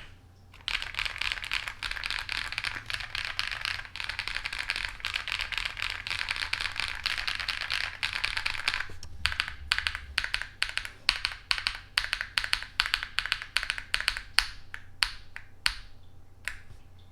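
Typing test on a KIIBOOM Phantom 81 mechanical keyboard fitted with Pink Rose switches and Fantasy of Egypt MDA-profile keycaps. Fast, continuous typing gives way about halfway through to slower, separate keystrokes that thin out and stop near the end.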